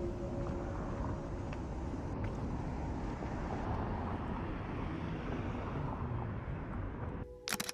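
City street traffic: a steady rumble of cars passing through an intersection. Two sharp clicks near the end.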